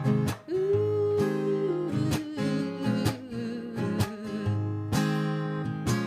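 Acoustic guitar strummed in a steady rhythm, with a long wordless sung note held over it that wavers and slides gradually lower.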